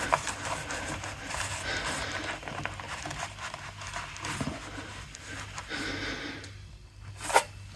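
A rag rubbing and wiping at the oil drain channel of a lawnmower, an uneven scratchy scuffing, with a sharp click near the end.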